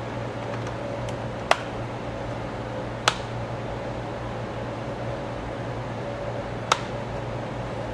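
Three sharp single clicks, about a second and a half, three seconds and nearly seven seconds in, from a tool working against the slide projector's housing to lift off its rubber feet. A steady low hum runs underneath.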